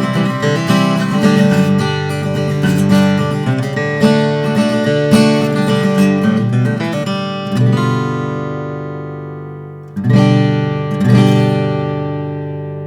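Martin 00-42 custom acoustic guitar being played: a busy run of picked notes and chords, then a chord left to ring, and two more chords struck about ten and eleven seconds in that ring out to the end.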